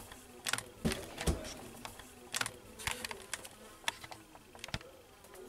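Light knocks and clicks at uneven intervals, about ten in a few seconds; the two around one second in are deeper thuds.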